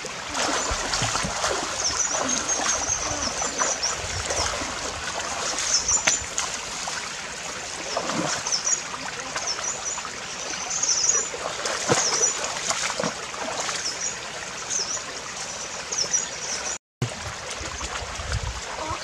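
Shallow river water sloshing and splashing as two people wade through it, with scattered sharper splashes. Faint high chirps repeat throughout.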